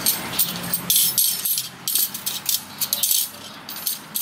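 Steel wire spokes clinking and rattling against one another and the hub as they are fitted into a motorcycle wheel hub: quick, irregular light metallic clinks.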